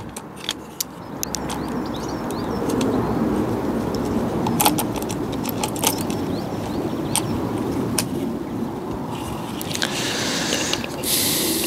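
Scattered clicks and rattles of small plastic and metal parts being handled as a 4-inch cordless mini chainsaw's guard is fitted by hand, over a steady background rumble, with a short scraping hiss near the end.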